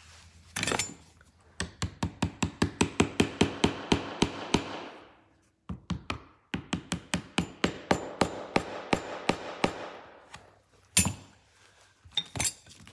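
Small hammer tapping a nail into the glued corner joint of an antique wooden clock-case frame: two runs of quick, light taps, about five or six a second, then a couple of single harder strikes near the end.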